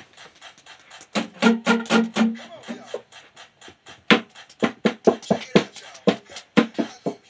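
Acoustic guitar being strummed: a run of short, sharp strums, coming in a quick rhythm through the second half.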